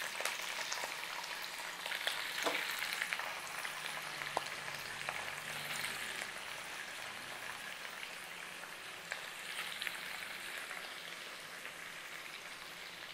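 Raw chicken pieces frying in hot oil with curry leaves in a kadai: a steady sizzling hiss with a few small pops, slowly dying down as the pan cools under the cold meat.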